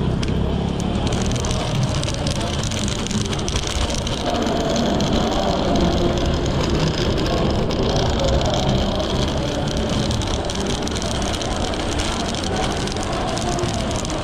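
Steady street noise heard while riding a Segway Ninebot ES4 electric scooter: an even rushing rumble of riding and passing traffic, without sharp events.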